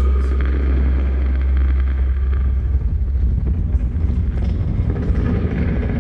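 Experimental drone and noise music from live electronics and an effects-laden electric guitar: a loud, deep bass drone under a haze of noise. About two and a half seconds in, the bass begins to stutter rapidly.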